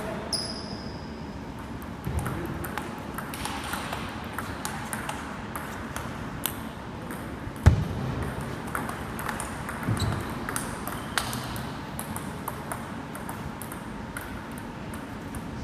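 Table tennis ball clicking back and forth off bats and the table in a rally, with one heavier thump about halfway through.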